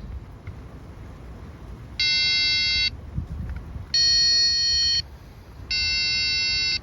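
Power Probe circuit tester sounding three long electronic beeps, about a second each, as it is touched to the coil plug terminals, signalling power or ground present. The middle beep is at a different pitch from the other two, as the probe tells a ground contact from a power feed.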